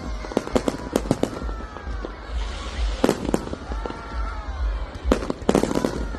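Fireworks going off: quick runs of sharp bangs and crackles, bunched near the start, about three seconds in, and again near the end.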